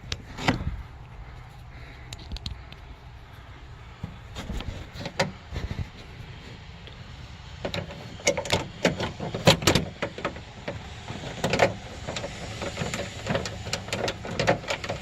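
Irregular clicks and light metallic knocks from handling a car trunk latch and starting its 10 mm mounting bolts in the trunk lid, thickest in the second half.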